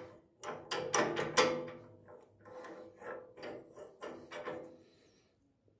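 Steel trailer swivel hitch on a walk-behind tractor being rocked back and forth by hand, its joint clunking in a quick, irregular series of metal knocks that fade out near the end: the knocking is the play in the swivel joint.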